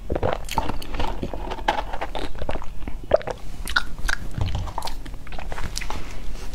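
Close-miked mouth sounds of a person eating: irregular crunching and wet chewing clicks as food is chewed with the mouth closed.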